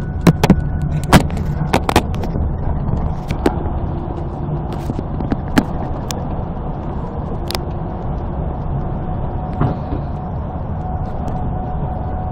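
Road and engine noise of a moving vehicle on a highway, a steady low rumble with a faint steady tone. Sharp clicks and knocks come now and then, most of them in the first two seconds.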